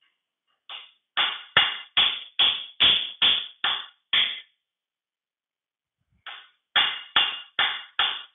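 Hammer striking a steel pin punch to drive a rusted, stuck pin out of a 1953 Allis-Chalmers B's cast-iron final drive housing. Quick, sharp metallic taps with a ringing tone come about two and a half a second in two runs, nine then five, with a pause of about two seconds between them.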